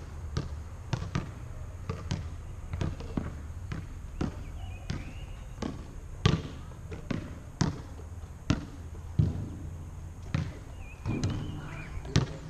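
A basketball bouncing on an outdoor hard court as it is dribbled and shot. It makes irregular sharp thuds, one or two a second, some much louder than others.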